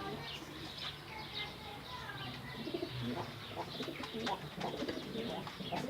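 Many birds calling together: pigeons cooing low, with a busy stream of quick, high chirps from smaller birds.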